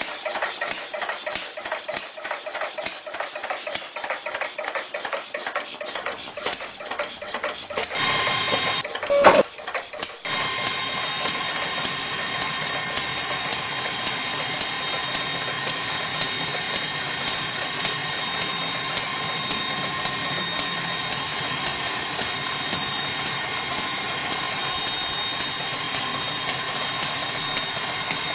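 Small DC motor of a toy borewell drilling rig. For the first several seconds it makes a rapid, even clicking rattle. About ten seconds in it settles into a steady high whine as it spins the drill rod down into wet sand.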